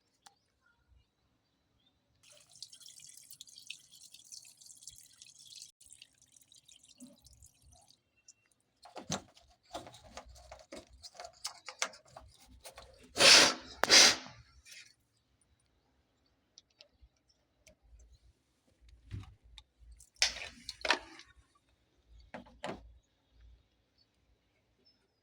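Water hissing for a few seconds, then splashing and sloshing in uneven bursts during washing machine tub cleaning, the loudest two splashes about halfway through.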